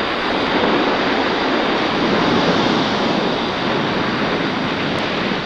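Steady radio static hiss played back from a reel-to-reel tape recorder: the recorded noise from a radio antenna that is the sound of the cosmic microwave background.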